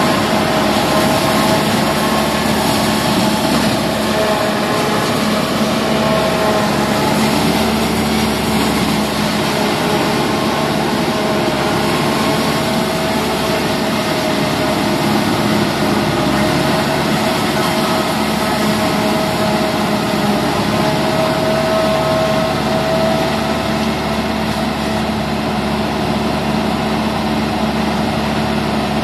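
Deutz-Fahr tractor running under load while driving a mounted forage harvester that cuts and chops Napier grass and blows it up the spout into the hopper. It makes a loud, steady machine drone with a constant hum.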